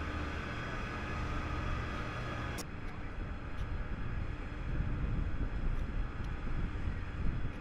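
Steady low engine hum from a heavy multi-axle transporter carrying a large rocket tank section, with outdoor background noise. About two and a half seconds in the sound changes abruptly to a rougher, lower rumble.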